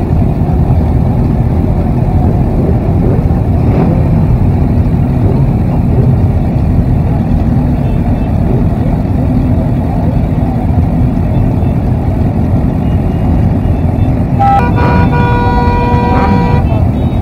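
Many motorcycle engines running and revving together in a dense, loud rumble. About 14.5 seconds in, a horn sounds one long blast of about two seconds, then cuts off.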